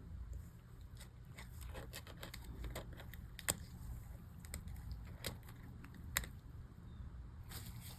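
Scattered light plastic clicks of MacBook keycaps being pressed and snapped onto the keyboard, with a few sharper clicks among them, over a faint low hum: keys being tested to see whether a replacement keycap is seated right.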